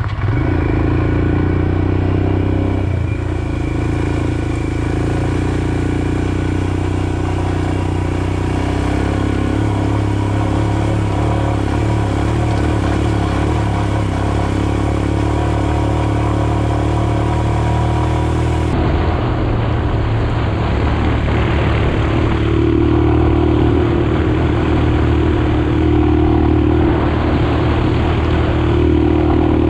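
Single-cylinder motorcycle engine running steadily under way at speed, with a change in the sound partway through where the footage is cut.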